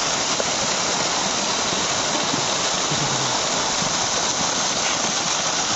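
Several pond fountain jets splashing steadily back into the water, a constant rushing hiss.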